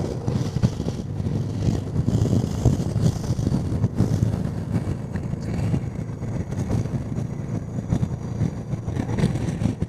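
Honda Deauville NT650V motorcycle's V-twin engine running steadily at road speed, with wind noise on the microphone.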